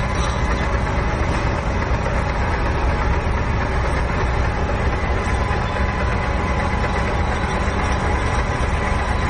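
Large CDS6266B universal lathe running under power, making an unbroken mechanical drone with a strong low hum and a few faint steady whines.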